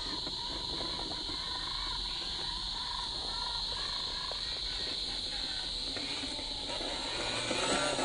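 Steady, high-pitched insect chirring, with faint scattered clicks and crunches from the RC crawler's tyres on rock and pine needles.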